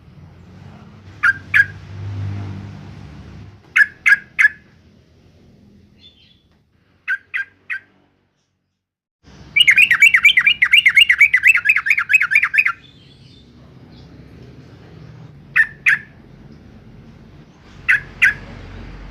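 Yellow-vented bulbul calling: short sharp chirps in quick pairs and threes, and a loud fast run of repeated notes lasting about three seconds, starting about halfway through.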